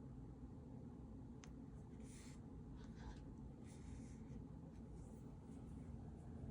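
Faint handling noise from hands on small objects: a click about one and a half seconds in, then a few short scrapes and rubs, over a steady low room hum.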